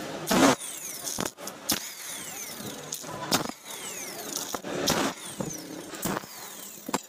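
Impact wrench working the clutch pressure-plate bolts of a motorcycle engine in several short bursts, each followed by a falling whine as the tool spins down.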